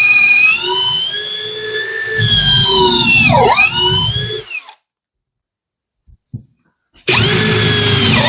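Parkside Performance PABS 20-Li C2 brushless cordless drill boring into wood with a 10 mm bit in second gear: the motor whine rises and wavers, dips sharply in pitch a few times, then stops about four and a half seconds in. After a short silence with a couple of faint clicks, the drill starts whining again near the end.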